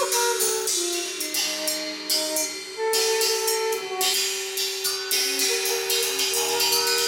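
Drum kit played with rapid, dense cymbal and hi-hat strokes, over held pitched notes that move from one pitch to another.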